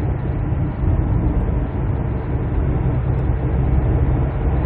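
Steady in-cabin road and engine noise of a Hyundai Trajet XG diesel minivan cruising at highway speed: a low, even rumble that grows slightly louder about a second in as the car enters a tunnel.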